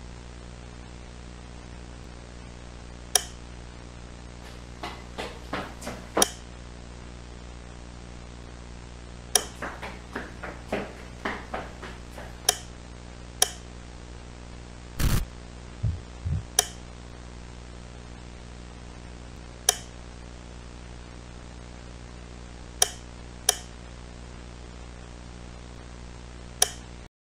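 Steady low electrical hum under scattered sharp clicks and light taps, with a heavier thump about halfway through followed by two smaller knocks.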